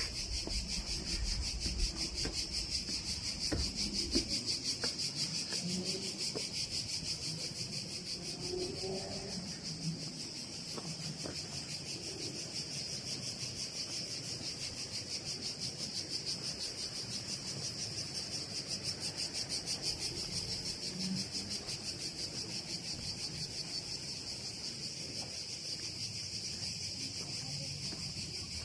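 Cicadas singing in a steady chorus of rapid, high buzzing pulses. Faint low thumps can be heard beneath it in the first few seconds.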